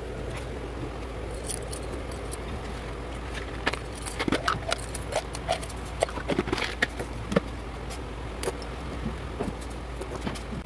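Scattered clicks and light metallic taps of hands handling the work at an industrial sewing machine, with scissors and fabric moved on the machine bed, thickest in the middle. Under them runs a steady low electrical hum. The machine is not stitching.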